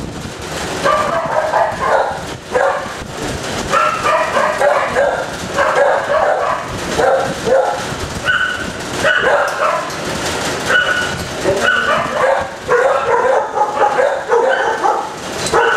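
Several kennelled shelter dogs barking at once, their barks overlapping almost without a break.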